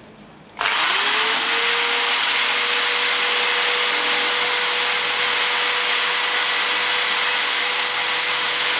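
Electric drill starting about half a second in and running steadily as its bit bores into a smartphone's glass screen and metal body. The motor's whine rises briefly at start-up, then holds under a loud, even grinding hiss.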